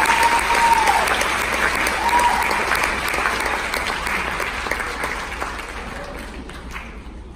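Audience applauding, with a few cheers over it in the first couple of seconds. The applause dies away over the last few seconds.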